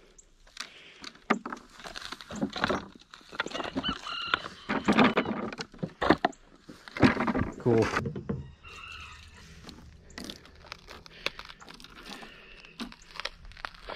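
Indistinct talking and voices in bursts, with scattered light clicks and handling noises; quieter in the last few seconds.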